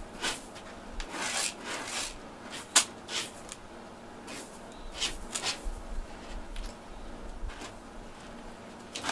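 A cat scratching and raking its paw through granular litter in a plastic litter box, burying its droppings: runs of short gritty scrapes, thinning out in the second half, with one sharper click about three seconds in.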